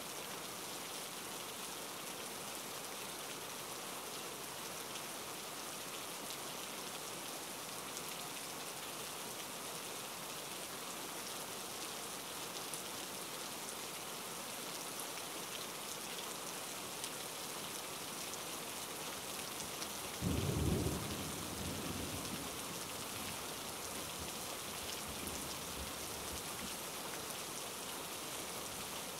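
Steady hiss of rain. About two-thirds of the way in, a sudden loud low rumble, the loudest sound, dies away over a second or two.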